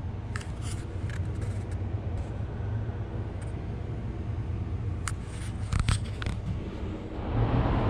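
Steady low background rumble, with a few light clicks and scrapes about half a second to a second and a half in and again around five to six seconds in.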